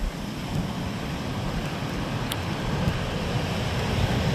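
Steady wash of surf with wind buffeting the microphone in a low, uneven rumble.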